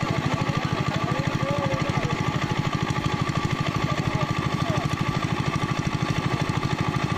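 A small engine running steadily with a rapid, even beat.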